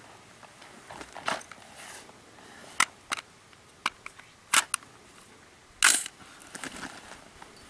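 Handling noise: about seven irregular sharp clicks and knocks with some rustling in between, the loudest near six seconds in.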